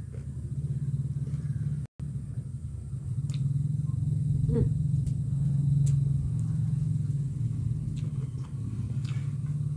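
A motor running steadily, heard as a low rumble, with a few faint short clicks over it.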